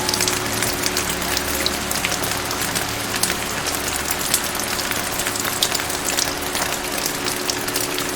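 Steady rain, a continuous hiss with many individual drops tapping close by, over a soft held background tone.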